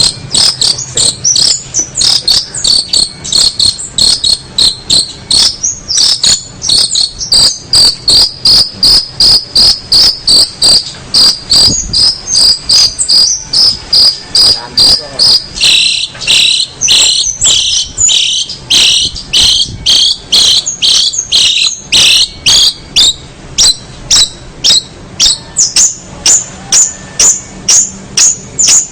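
A loud, steady series of short, high-pitched chirps, about three a second, running without a break. The chirps widen and drop somewhat in pitch for a stretch in the middle.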